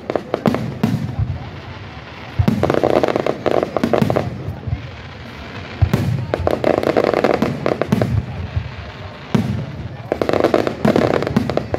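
Aerial fireworks shells bursting in rapid volleys of loud bangs, coming in three bunches a few seconds apart with quieter gaps between.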